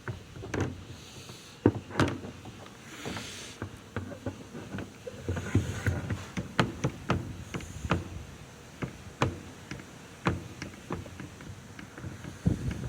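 Irregular clicks, taps and knocks at uneven intervals, some sharp and loud, with no steady running sound underneath.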